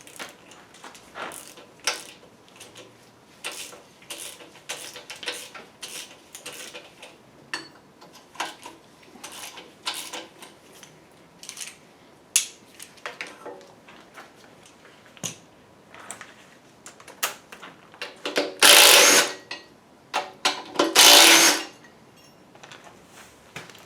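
Hand ratchet clicking in short, irregular spurts while oil pan bolts are worked loose. Near the end come two loud bursts of noise, about a second each.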